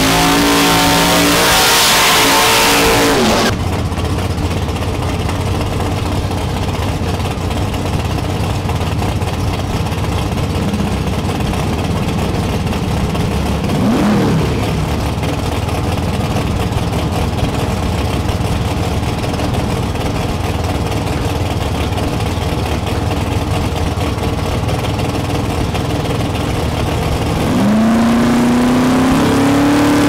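Big-engine drag car doing a burnout, engine revving hard over the hiss of spinning tyres, cut off suddenly about three seconds in. Then drag car engines idling at the starting line, with one short rev blip midway, and near the end an engine revs up and holds at a steady high pitch.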